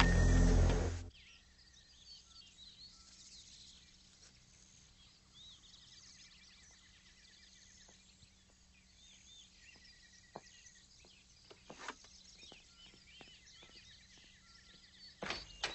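Music cuts off about a second in. Then faint birdsong follows: many short chirps over a low steady hum, with a few soft clicks near the end.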